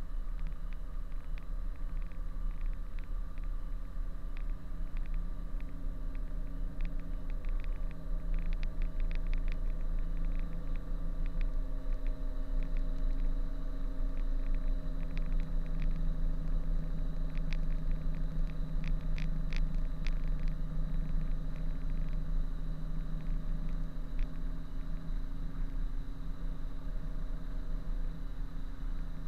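Diesel engine of a Kenworth B-double prime mover running at low revs while reversing, a steady low rumble that gets a little louder through the middle. Faint scattered ticks sound over it for several seconds.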